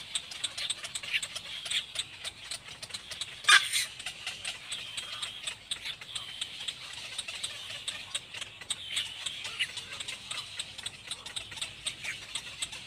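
Little black cormorants calling with high, thin, wavering calls and rapid ticking, with one louder, falling call about three and a half seconds in.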